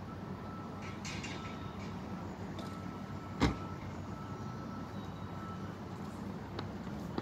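Steady low engine hum with one sharp knock about three and a half seconds in.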